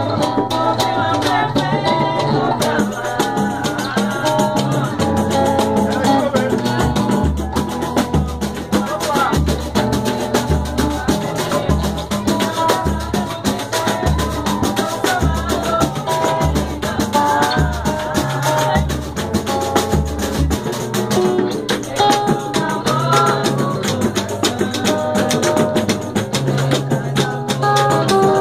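Samba batucada: hand percussion with a shaker and dense drum strokes, under quick plucked notes from a viola. Deep low notes come in about a quarter of the way through and stop a little past two-thirds.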